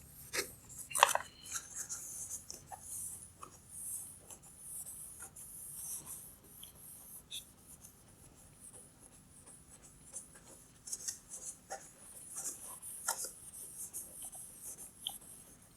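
Cloth towel wiped across a plastic headlight lens, a soft repeated rubbing and scratching with scattered small clicks, and one sharper tap about a second in.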